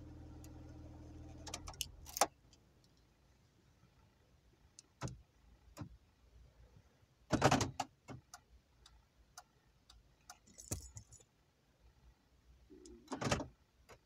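A low steady hum that stops about two seconds in, followed by scattered light clicks and several louder clunks, the longest about halfway through and another near the end. The clunks are the Land Rover Freelander's central-locking door locks worked by a newly programmed two-button remote key fob, heard from inside the car.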